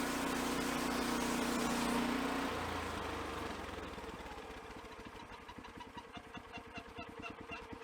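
Engine of an EZ Boardwalk Jr band sawmill running at speed, then throttled back about two and a half seconds in and settling into a slow, even idle.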